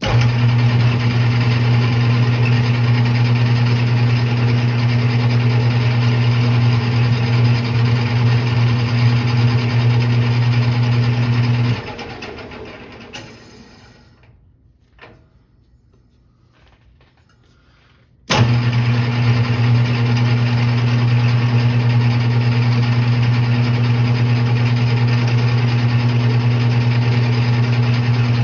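Metal lathe running with a steady low electric-motor hum. About twelve seconds in it is switched off and spins down, a few small clicks follow, and about six seconds later it is switched on again and runs steadily.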